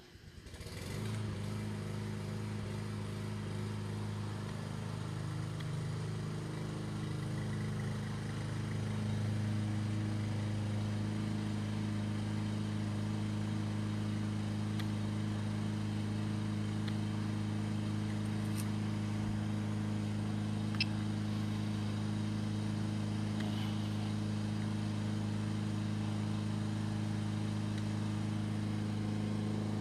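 A steady motor hum made of several held pitches, fading in over the first second and getting slightly louder about nine seconds in.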